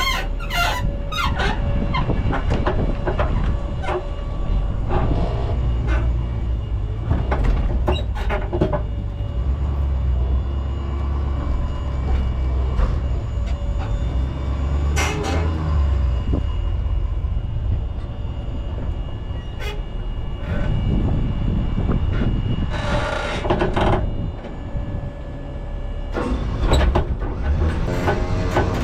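Heavy truck running, with a steady low rumble and repeated metal rattles and clanks.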